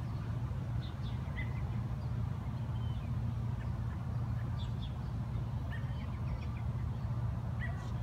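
Scattered short bird chirps, spread through the whole stretch, over a steady low rumble.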